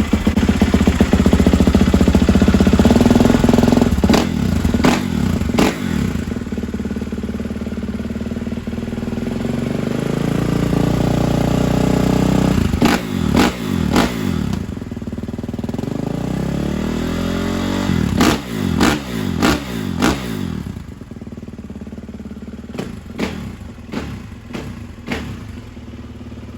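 Kawasaki KX450 single-cylinder four-stroke dirt bike on its stock exhaust, running after a cold start with the choke on. It holds a steady idle at first, then takes a series of quick throttle blips through the second half.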